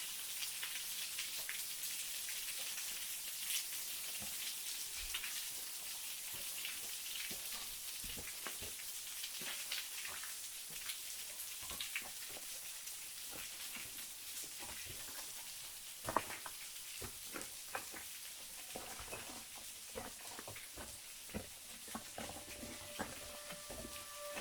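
Falling water spattering: a steady high hiss with many small drips and taps scattered through it, one sharper tap about 16 seconds in.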